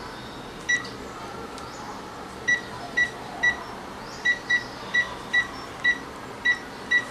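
Panasonic cordless phone handset keypad beeping as a number is dialed: eleven short, high beeps, one per key press, a single one about a second in and then ten more in an uneven run of about two a second.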